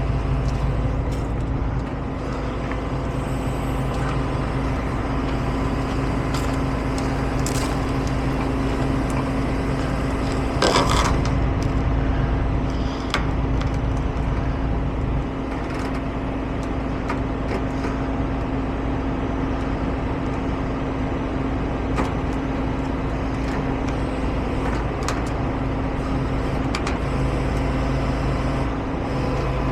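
Heavy tow truck engines running steadily under load, with scattered knocks and creaks and a brief burst of hissing about eleven seconds in.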